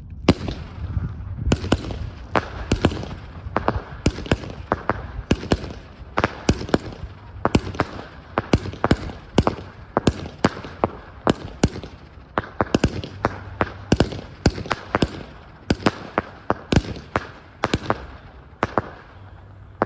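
Category F2 consumer fireworks, most likely a battery (cake), firing a rapid, irregular series of sharp bangs, about two or three a second. The shots stop shortly before the end.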